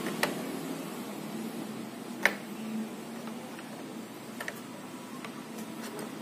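A 10 mm combination wrench tightening the nut on a car battery's negative terminal clamp: a few sharp metallic clicks of the wrench on the terminal, the loudest about two seconds in and several lighter ones near the end.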